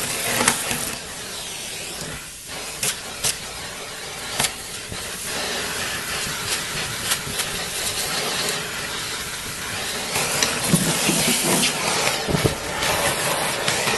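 Vacuum cleaner running with a steady hiss, sucking up dust and pet hair from a refrigerator's condenser coils, with scattered clicks and knocks as the nozzle is worked around, louder over the last few seconds.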